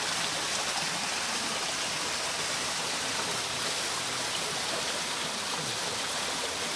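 Small hot-spring waterfall pouring down a rock face and splashing onto the rocks and a bather standing beneath it: a steady rushing splash.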